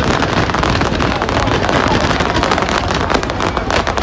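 Fireworks bursting in a dense, continuous crackle of many small pops with no break.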